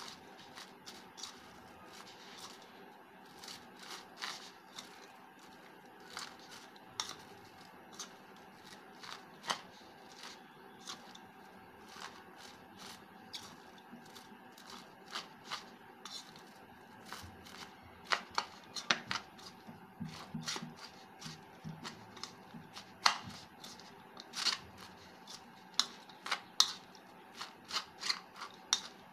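Fork scraping and clinking against a ceramic plate while stirring shredded cabbage, grated carrot and flour together, in irregular strokes that grow louder and more frequent about halfway through.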